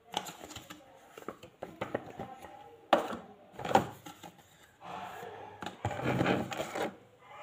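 Paper and cardboard packaging handled during an unboxing: rustling and crinkling with light clicks and taps. The rustling is loudest in two spells, about three seconds in and again from five to seven seconds.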